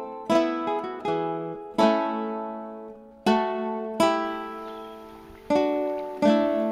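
Background music: an early English piece played on a plucked string instrument, single notes and chords picked out one to two a second, each fading away.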